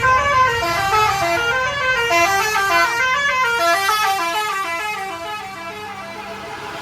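Bus 'basuri' telolet horn, a multi-tone musical air horn, playing a quick tune of short stepped notes that grows softer toward the end.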